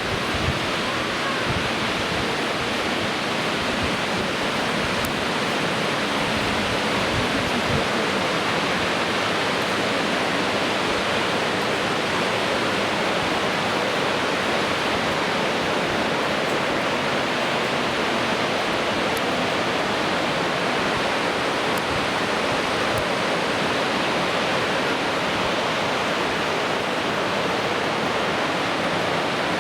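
A waterfall's falling water rushing loudly and steadily, an even unbroken rush with no pauses.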